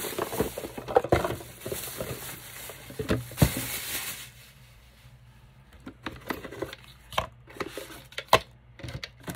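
Plastic bag rustling and crinkling as items are pulled out of it, then cardboard boxes and a ribbon spool set down on a cutting mat with scattered light knocks and clicks.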